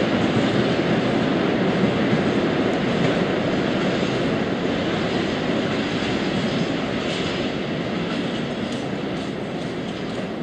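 Open freight wagons rolling on the rails as the end of a freight train passes, a steady rumble of wheels that slowly fades as the train moves away.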